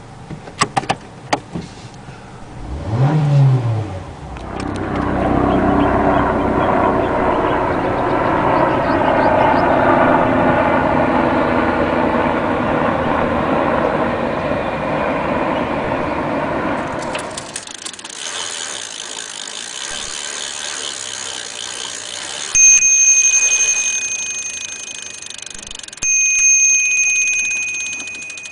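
A run of transport sound effects: clicks and a brief rising-and-falling hum, then a long steady vehicle noise. Near the end come two long ringing tones, each starting suddenly and fading slowly.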